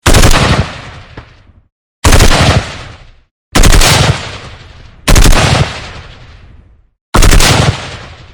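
Heavy gunfire: five short bursts of rapid shots, about one every one and a half to two seconds, each followed by a long echoing tail.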